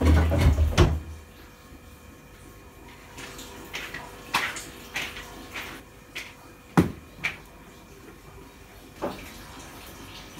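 Kitchen handling noises: a heavy thump and knocking in the first second, then a string of short clicks and clinks of a cupboard and dishware being handled, with a sharp knock near seven seconds in and one more near nine.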